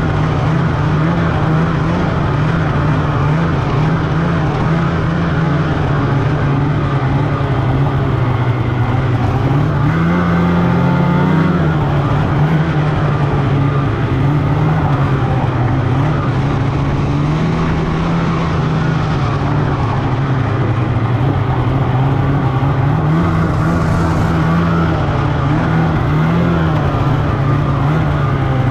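Snowmobile engine running steadily under way, heard from the rider's seat, its pitch swelling briefly about ten seconds in and again near the end as the throttle changes.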